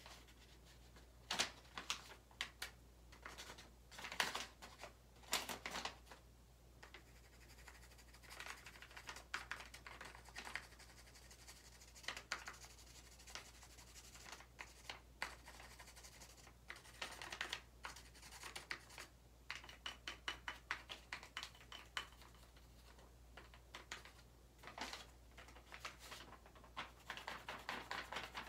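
Pencil rubbing back and forth over paper pressed against a wall, in irregular bursts of scratchy strokes that come in quicker runs near the end, over a faint steady low hum.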